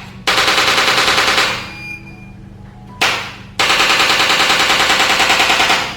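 Handheld electric chiropractic adjusting instrument firing rapid mechanical thrusts on the sacroiliac joints, about a dozen a second. It comes in two bursts: a short one near the start and a longer one from about three and a half seconds in.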